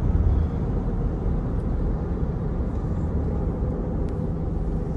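Steady low rumble of road and engine noise inside a moving car's cabin, with a faint steady hum.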